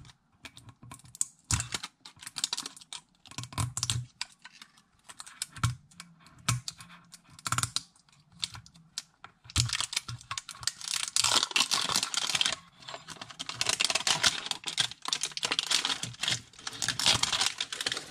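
Plastic shrink wrap being picked at and peeled off a metal Poké Ball tin: scattered clicks and crinkles at first, then, about halfway through, a dense run of crackling as the film is torn away.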